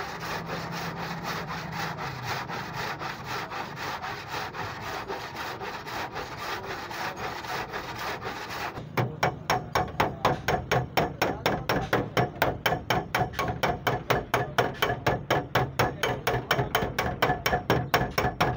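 Body filler on a car door panel being rubbed down by hand, with quick back-and-forth scraping strokes. About nine seconds in, the strokes become louder and more separate, at roughly three a second.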